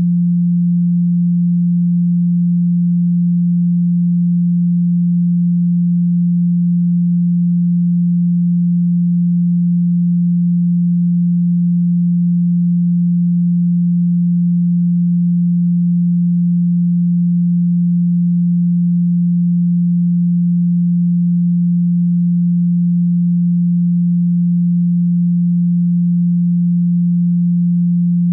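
A steady pure sine tone at 174 Hz, the Solfeggio frequency: a single low hum that never changes in pitch or loudness.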